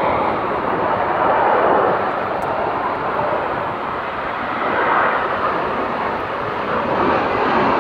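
Jet noise from Blue Angels F/A-18 Hornets flying over the airfield, a steady roar that swells twice as the jets pass.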